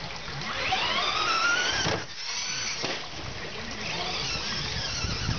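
Traxxas radio-controlled truck's motor revving up as a rising whine, breaking off suddenly about two seconds in, then winding up again in a second rising whine near the end.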